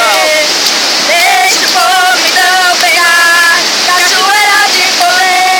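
Waterfall: a loud, steady rush of falling water. Over it a high-pitched voice sings short held notes.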